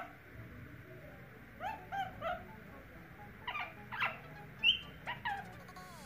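Indian ringneck parakeet giving a series of short, pitched calls in small clusters. The loudest is a brief high note about three quarters of the way through.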